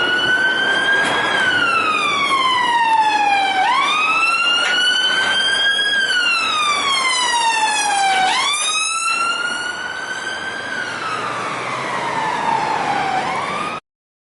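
Electronic emergency-vehicle siren in wail mode. Its pitch climbs quickly and then slides slowly down, about three cycles of four to five seconds each. It cuts off abruptly near the end.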